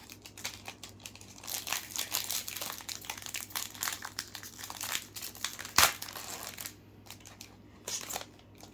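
Plastic trading-card pack wrapper crinkling as it is handled and torn open, with a sharp snap a little before six seconds in.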